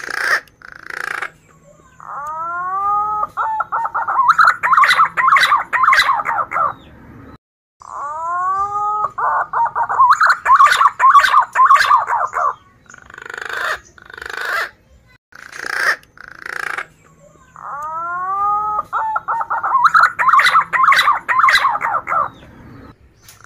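Male punai daun green pigeon singing: three song phrases, each opening with a few sliding whistles and running into a rapid warbling trill, with short single notes between the phrases.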